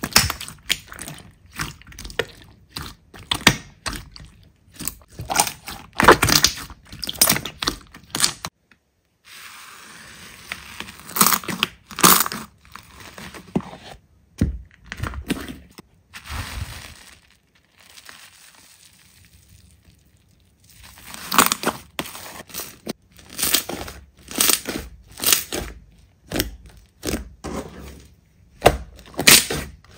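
Slime being pressed and squeezed by hand, giving irregular crackling and crunching pops, with a brief break about nine seconds in.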